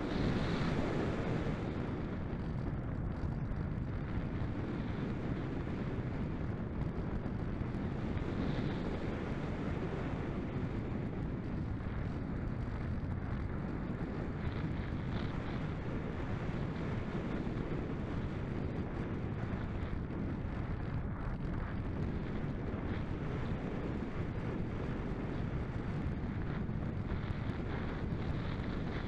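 Airflow rushing over the microphone of a camera on board a model glider in gliding flight: a steady wind noise with no clear motor tone.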